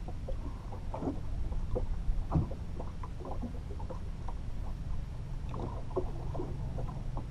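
Water slapping and lapping against the hull of an aluminium fishing boat: irregular short splashes and knocks over a steady low rumble of wind and water.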